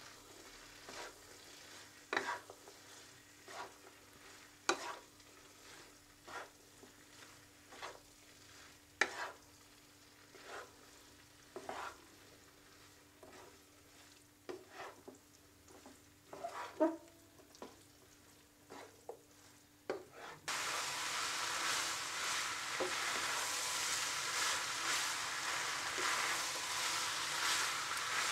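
A wooden spatula stirring boiled fusilli into cooked mince in a nonstick pan: scattered knocks and scrapes against the pan over a faint steady hum. About twenty seconds in, a loud steady sizzle of the food frying starts.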